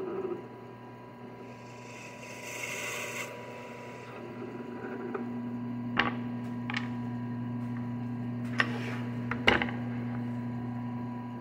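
Drill press motor running with a steady hum while a twist bit bores into a small wooden toy wheel. A short hiss of the bit cutting comes about two seconds in. Several sharp knocks follow, around six and nine seconds in.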